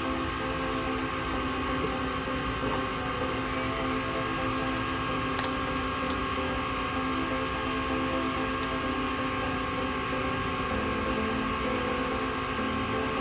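Steady mechanical hum with several held tones, broken by two sharp clicks a little under a second apart about halfway through.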